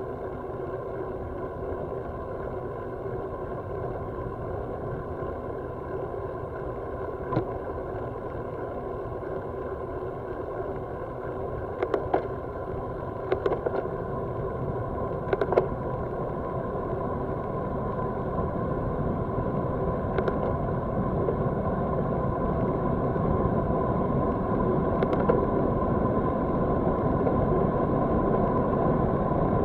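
Wind and road noise on a bike-mounted camera as a road bicycle is ridden on asphalt, slowly getting louder as the speed builds. A few sharp clicks from the bike come through between about 7 and 25 seconds in.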